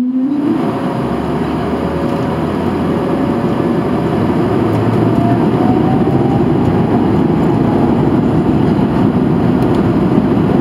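Airbus A220-300's Pratt & Whitney PW1500G geared turbofans heard from inside the cabin, spooling up to takeoff power. The engine hum rises in pitch at the start and turns into a steady loud roar with a low rumble underneath as the jet accelerates for takeoff. A faint whine climbs in pitch a few seconds in.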